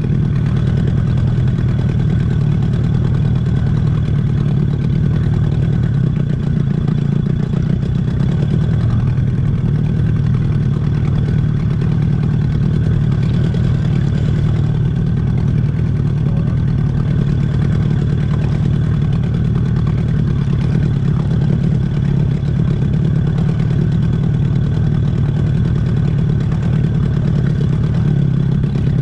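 Boat's outboard motor running steadily at low trolling speed, heard from aboard the boat.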